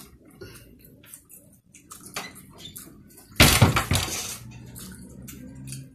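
Forks clinking and scraping on plates as two people eat noodles, with one loud clatter like something crashing about three and a half seconds in.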